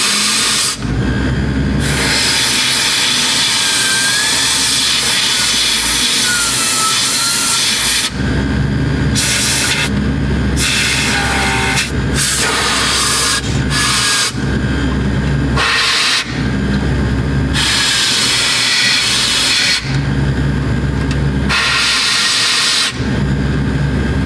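Compressed air hissing from a blow-gun wand aimed into the heater and AC blower's squirrel-cage fan in a John Deere 35D excavator cab, in one long blast of about seven seconds and then a run of shorter bursts. Between the bursts the blower motor is heard humming steadily.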